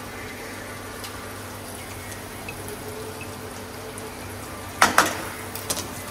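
Faint steady sizzle of oil frying a tempering of peanuts, chillies and curry leaves in a steel kadai. About five seconds in, a metal spoon clinks twice, followed by a few lighter taps.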